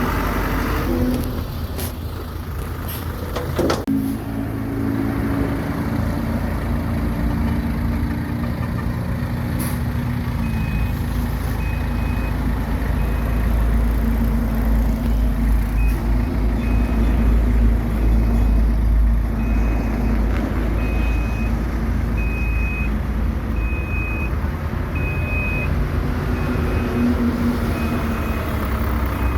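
Heavy diesel earthmoving machine running with a deep rumble, with a few sharp knocks near the start. From about a third of the way in, a reversing alarm beeps about once a second as the machine backs up.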